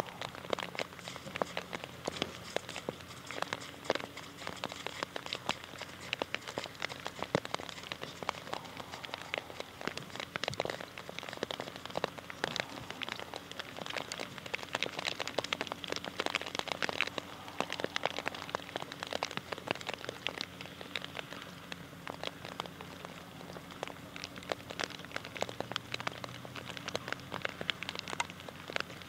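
Rain pattering in many small, irregular drops, with a faint steady low hum underneath.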